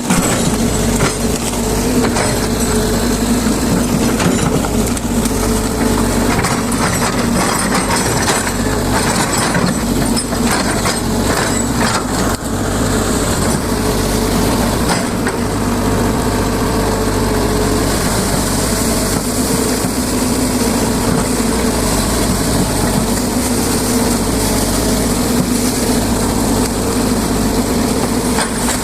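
Excavator's diesel engine running steadily at working revs, with the crackling and snapping of brush and branches being crushed, busiest a little under halfway through.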